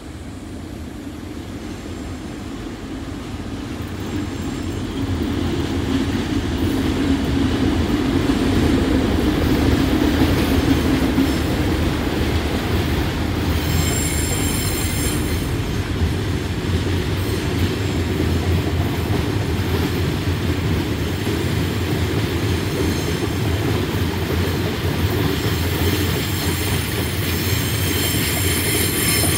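Freight train of hopper wagons passing close by: a rumble that builds over the first several seconds, then the steady roll of the wagons along the rails. A high wheel squeal joins in about halfway through.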